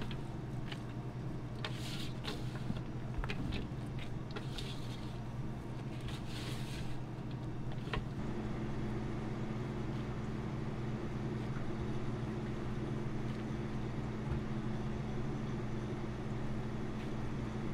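A steady electric motor hum, with scattered clicks and short hissing bursts over the first seven seconds. From about eight seconds in only the hum remains, slightly stronger.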